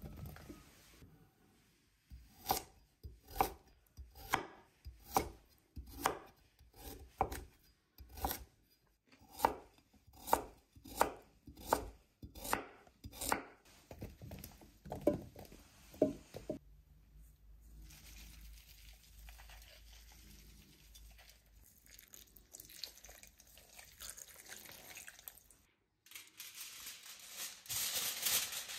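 Knife chopping food on a cutting board, sharp strokes about once a second for some fifteen seconds, then stopping. Quieter handling noise follows, and a louder hiss comes in near the end.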